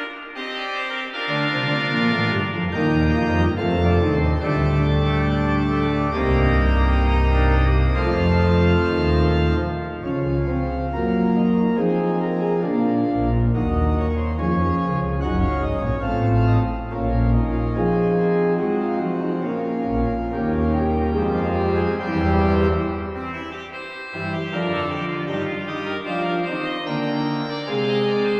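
A sampled pipe organ (the St Mary-le-Bow sample set) playing a lively piece in full chords on the manuals. Deep pedal bass notes come in about a second in and drop away for a moment near the end.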